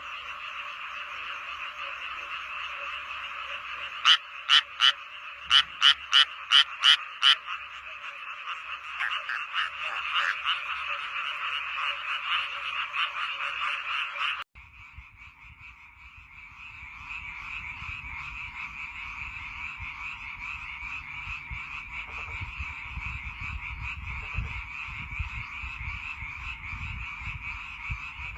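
A dense chorus of many frogs calling at once. A few seconds in, one close frog gives a quick series of about eight loud, sharp calls over the chorus. About halfway through, the sound cuts abruptly to another frog chorus with a low rumble underneath.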